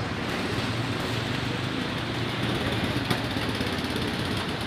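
Steady road traffic noise: the engines of slow-moving cars and a small flatbed truck running at low speed in a jam on a flooded street. A single short click sounds about three seconds in.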